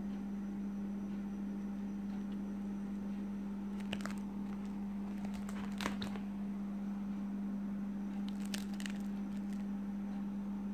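Plastic coin-album pages and cardboard coin holders crinkling in short clusters as they are handled, three times, over a steady low hum.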